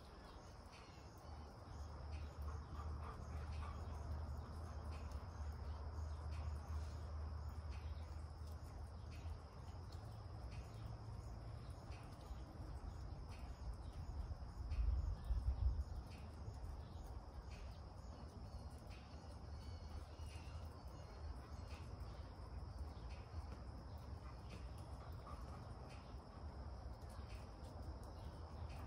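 Faint background ambience: a low rumble and a steady high-pitched drone, with a brief louder low rumble about fifteen seconds in.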